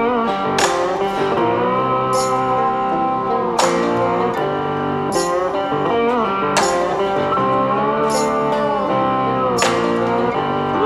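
Background music: a guitar-led blues-country tune with notes that slide in pitch, and a sharp beat about every second and a half.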